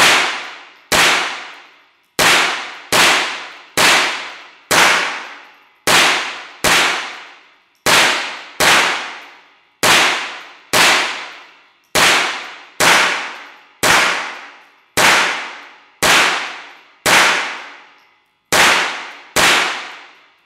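Ruger 10/22 semi-automatic .22 rimfire rifle firing a steady string of about twenty shots, roughly one a second, each sharp crack followed by a long echo that dies away before the next.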